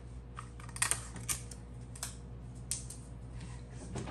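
Adhesive tape being pulled from a desk tape dispenser, torn off and pressed onto aluminium sheet pans: scattered sharp clicks and light taps, most in the first three seconds, over a steady low hum.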